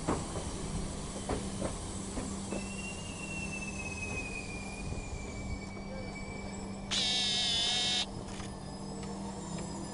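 Passenger train running on the rails with a steady low rumble and hum and a few clicks in the first couple of seconds. A faint high whine slowly falls in pitch, and about seven seconds in a loud, shrill, high tone lasts about a second.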